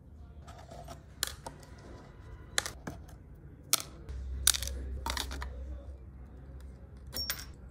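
About six sharp clicks and light knocks at irregular intervals, the loudest about four and a half seconds in, from objects being handled during a workshop restoration. A low hum swells underneath in the middle.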